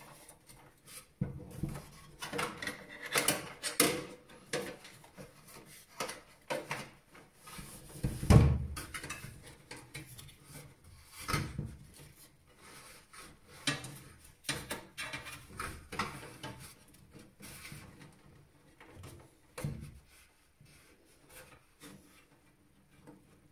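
Hands working inside a desktop PC case: irregular clicks, knocks and rubbing of cables and metal and plastic parts, with one heavier thump about eight seconds in.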